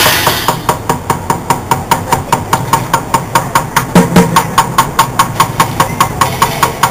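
Street drumming on a makeshift kit of plastic buckets and pans: a fast, even beat of about five strikes a second.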